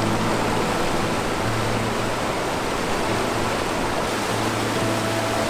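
Mountain creek rushing over rocks and small cascades: a steady whitewater rush with no break.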